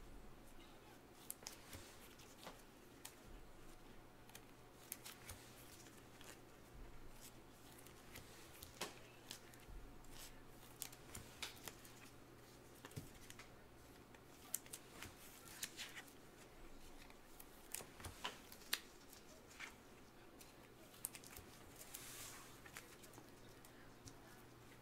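Scattered quiet clicks and taps of trading cards being handled at a table, with a brief rustle near the end over a steady low hum.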